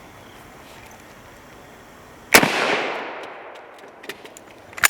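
A single rifle shot from a 7mm Mauser: one sharp crack about two seconds in, followed by a long echoing decay.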